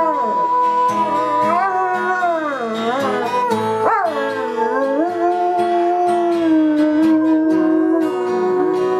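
German Shepherd howling along to a strummed acoustic guitar: long drawn-out howls that slide up and down in pitch, then hold steadier in the second half.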